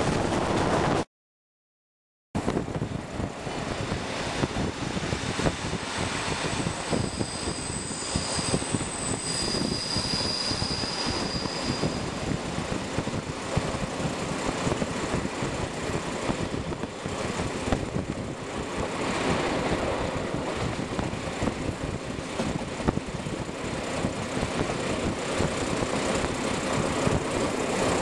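Train running along the rails, heard from on board: a steady rumble of wheels and motor, with a thin high squeal from about seven to twelve seconds in. The sound cuts out completely for about a second near the start.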